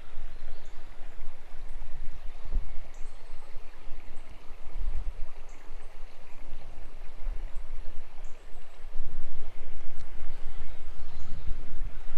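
Small creek running, a steady rush of water, with an irregular low rumble on the microphone.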